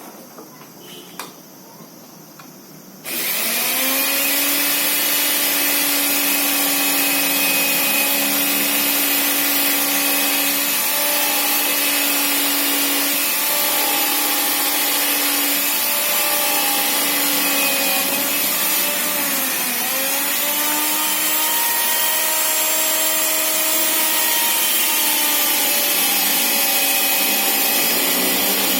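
Electric motor of a Wipro 1800 W sliding mitre saw switching on about three seconds in and running at speed with a steady whine, its pitch sagging briefly a few times as the blade takes load, typical of cutting wood.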